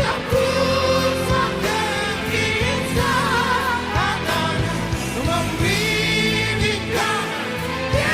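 Malaysian rock music from a live band performance: singing over a full band with drums, one held note sung with vibrato about three seconds in.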